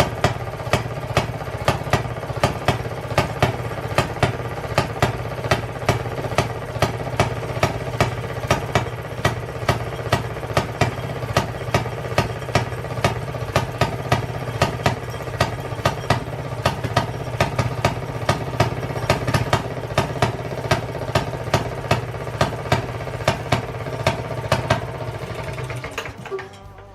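A 1920s Maytag two-stroke washing-machine engine running after a cold start, its exhaust popping in a quick, uneven beat, with some firings much louder than the ones between them, which fits the hit-and-miss firing. The sound drops off near the end.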